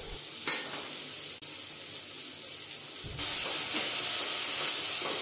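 Onion masala sizzling in hot mustard oil in a kadai: a steady frying hiss that gets louder about three seconds in.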